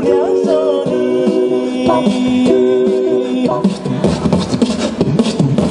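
A cappella vocal music: voices hold long, stacked chords, then about three and a half seconds in give way to a busier rhythmic section of short, clipped percussive sounds.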